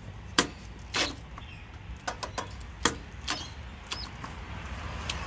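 A series of sharp, irregular clicks and knocks, about eight in all, as tools are picked up and handled while working on the mower.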